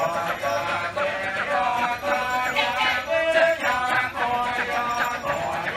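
Kecak chant: a large chorus of men chanting and singing in Balinese Kecak style, many voices in dense, fast-changing rhythm.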